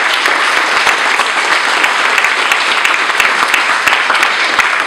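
Loud audience applause: many people clapping at once in a dense, steady patter.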